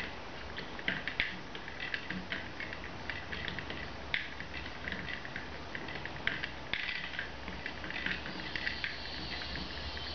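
Hand-cranked wooden automaton (a walking kiwi) clicking and clattering irregularly as its crank is turned, with wooden gears, cams and leg linkages knocking against each other.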